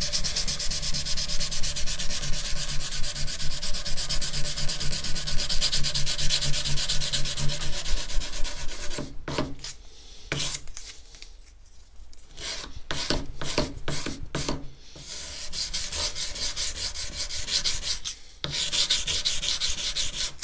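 240-grit sandpaper rubbed by hand along the steel spine of a knife clamped in a vise, in quick even back-and-forth strokes. About nine seconds in, the strokes stop and go on in shorter, separate runs with pauses. The coarser grit is evening out deep scratches left by the belt grinder on the spine.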